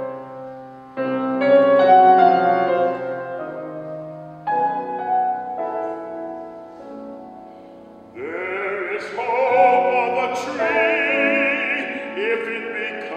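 Grand piano playing slow chords, each struck and left to ring away, then about eight seconds in a bass-baritone voice enters singing a classical art song with wide vibrato over the piano.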